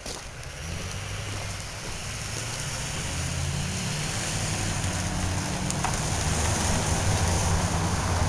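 Low engine rumble of a motor vehicle on the street, building gradually louder, over a steady outdoor noise hiss.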